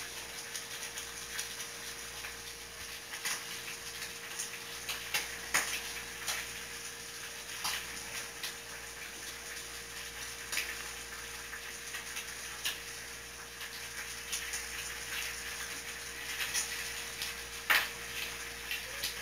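Ripe bananas being peeled and handled on a wooden cutting board: scattered soft clicks and taps of peel and fingers against the board, with one sharper click near the end, over a faint steady hum.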